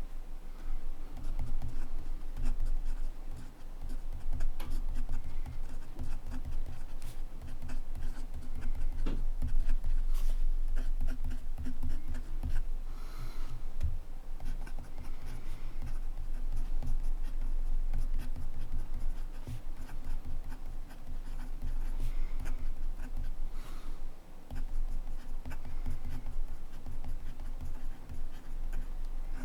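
Montblanc Meisterstück 144 fountain pen writing on paper: the repaired nib scratching along in quick short strokes, with soft low bumps underneath.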